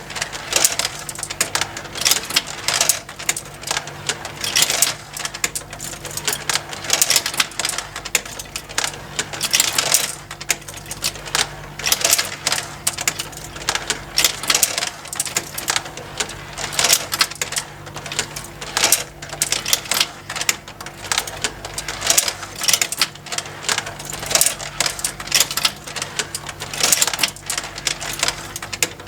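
Motorised plastic marble run toy running: marbles clicking and clattering against each other and the plastic tracks in an irregular, continuous patter, over the faint steady hum of the small motor driving the plastic conveyors that lift them.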